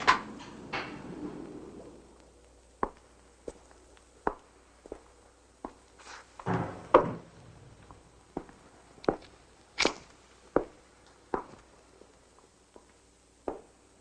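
A slow, fairly even series of sharp knocks, roughly three every two seconds, with a short louder rustling noise about halfway through.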